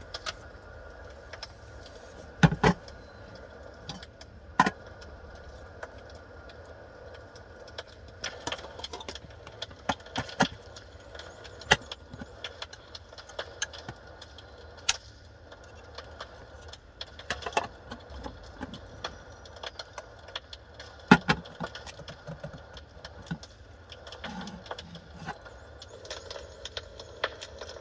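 Irregular small clicks and knocks as a power strip and an electric cooking pot with a glass lid are handled, over a steady low hum.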